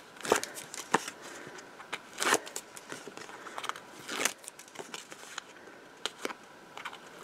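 Paper rustling and crinkling as fingers handle and peel the printed paper backing from adhesive tape strips, with a handful of short sharp crackles, the clearest about a third of a second, one, two and four seconds in.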